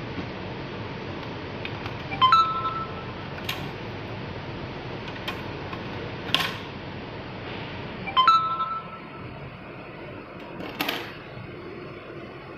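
Hard plastic parts of an e-bike battery case and its cell holder knocking and clicking as they are handled, over a steady hiss. The two loudest knocks, about two and eight seconds in, each leave a brief ringing tone.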